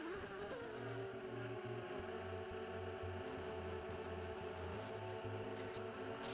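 Brushless motors of a small quadcopter, MC2204 motors on DYS SN16A ESCs, spooling up with a wavering rise in pitch as it lifts off, then running in a steady whine as it flies low.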